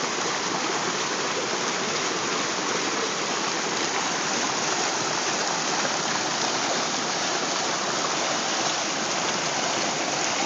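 Waterfall: falling water rushing and splashing in a steady, unbroken roar.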